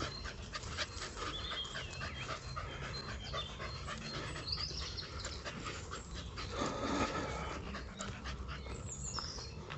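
Dogs panting steadily on a walk.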